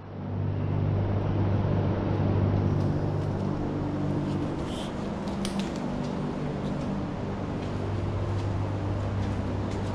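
A steady, low mechanical hum with a light rushing noise over it, a little louder for the first few seconds.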